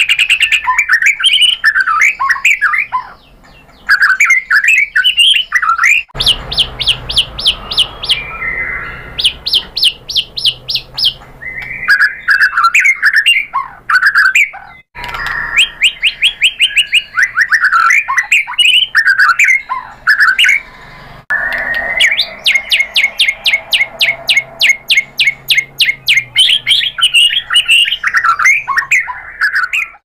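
White-rumped shama singing a long, varied song: whistled and sweeping phrases mixed with fast trills of rapidly repeated high notes, with a few brief pauses.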